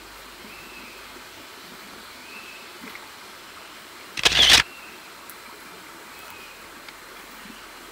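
A DSLR camera shutter fires a short rapid burst of several frames about halfway through, the loudest sound here. Under it runs a steady background hiss with a few faint high chirps.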